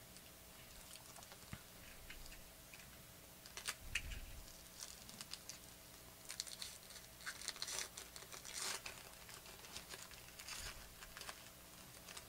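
A foil trading-card pack being torn open by hand and its wrapper crinkled: a faint, irregular string of crackles and rustles, loudest about four seconds in and again a few seconds later.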